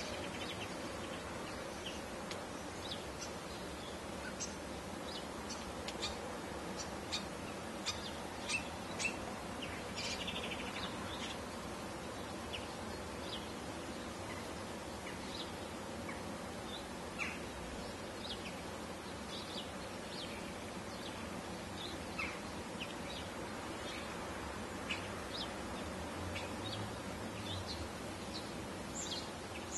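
Birds chirping: many short, scattered calls over a steady background hiss.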